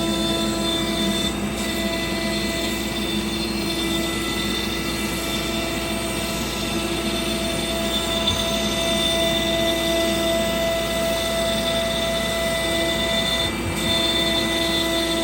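Sienci Labs AltMill CNC router running, giving a steady whine of several held tones with a brief break near the end.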